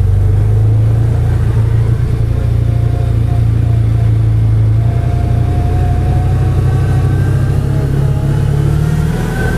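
The engine of a CFMoto UForce 1000 side-by-side, a 1000 cc V-twin, running as the vehicle drives off. Its pitch rises slightly toward the end, with a faint whine that rises over it in the second half.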